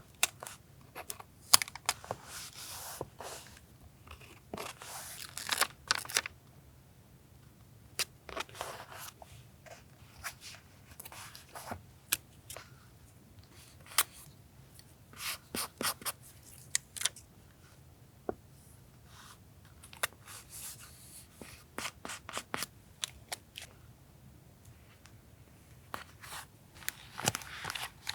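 Paper being handled for a collage journal: bouts of rustling and tearing paper, broken by many sharp clicks and taps, over a faint steady refrigerator hum.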